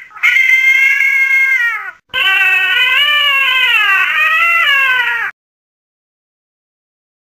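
A cat meowing: two long, high meows, the second wavering up and down in pitch before it cuts off suddenly.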